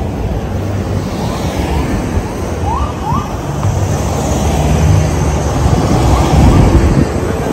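Outdoor street noise of SUVs driving past in a convoy, mixed with heavy wind rumble on the microphone, growing louder about halfway through.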